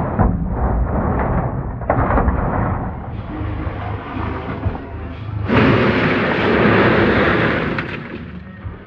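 Wheelbarrow loads of wet clay and stone spoil tipped onto a heap, the lumps tumbling and sliding down the pile. A louder rush of falling material comes from about five and a half seconds to eight seconds.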